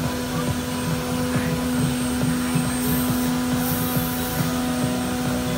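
CNC router spindle and dust extraction running steadily with an even whine while routing plywood, with brief hissing twice about three and four seconds in.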